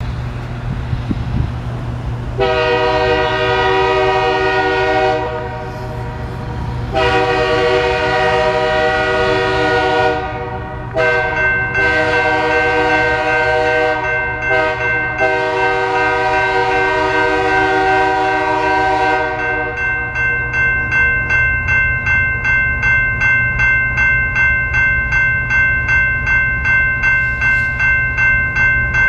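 Freight locomotive's horn sounding a series of long chord blasts for the grade crossing, stopping about two-thirds of the way in. Partway through the horn sequence the crossing's warning bell starts up, then rings on quickly and steadily at about two strikes a second over a low rumble.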